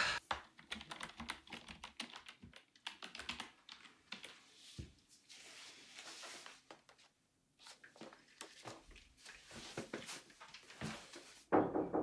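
Computer keyboard typing: a run of quick, irregular key clicks that stops briefly a little past the middle. Near the end, a louder knock on a wooden door.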